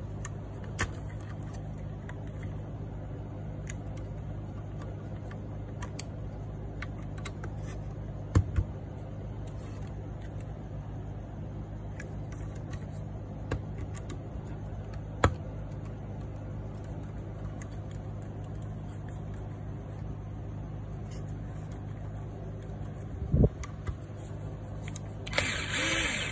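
Steady low hum under a few sharp clicks and a louder knock from a screw being hand-tightened with a driver and bit holder into a mounting bracket, with a short rustling burst near the end.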